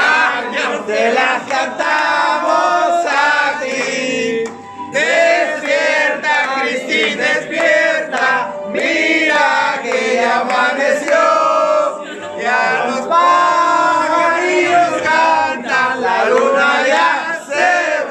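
Music with several voices singing, loud and continuous, over the chatter of a crowded room.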